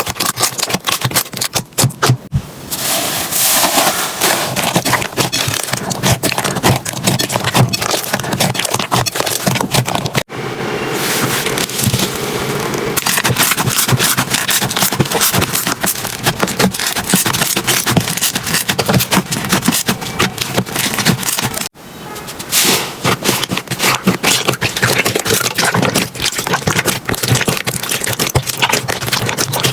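Slime being squeezed, poked and stretched, giving dense, irregular crackling and popping clicks, in several back-to-back clips that cut abruptly about 2, 10 and 22 seconds in.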